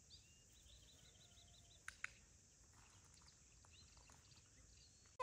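Quiet outdoor ambience with faint songbird chirps, a quick run of repeated notes in the first second and a half, and two faint clicks about two seconds in.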